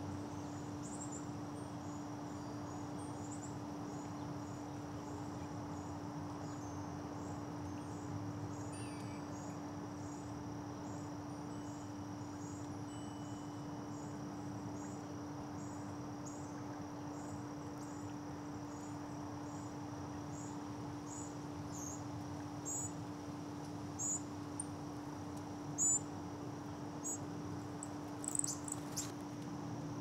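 Insects chirping in a steady rhythm, about two high chirps a second, over a constant low hum. A few louder, sharp chirps come near the end.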